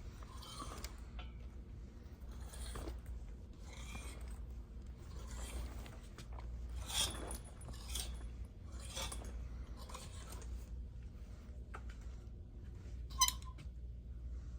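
Soft rustling and shuffling movement noises coming about once a second, with a sharp click about thirteen seconds in, over a low steady hum.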